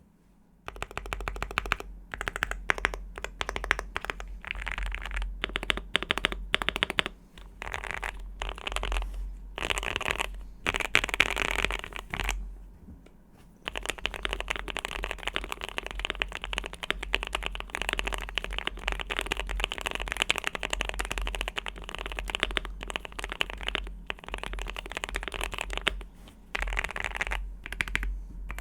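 Typing on a Luminkey 75 mechanical keyboard with Gateron Oil King linear switches: fast, continuous runs of keystrokes, broken by a short pause a little before halfway.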